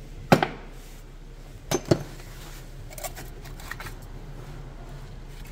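Sharp metal-on-metal clinks from a loosened brake caliper and its bolts being handled. Two pairs of clinks come about a second and a half apart, then a few fainter taps.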